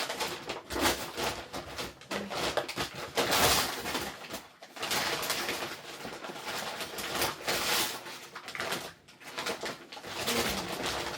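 A pigeon cooing a few times, low and brief, over a steady rushing noise full of small clicks and knocks.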